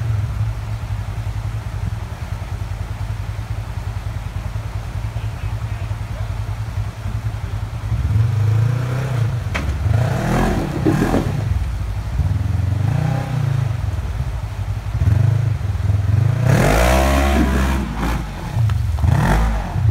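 Side-by-side UTV engine running low and revving up in several bursts while crawling up a rock ledge, the longest and hardest rev near the end as the tyres spin and throw water.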